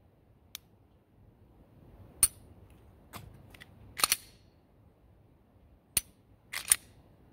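Dry-firing unloaded Glock 19X pistols: sharp metallic clicks of the striker trigger breaking and resetting, with the slide racked around the middle to re-cock the striker. About six separate clicks, a double click near the end.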